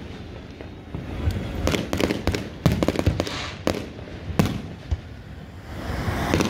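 Aerial fireworks shells bursting overhead: an irregular run of sharp bangs, about eight in all, with a hissing crackle between some of them.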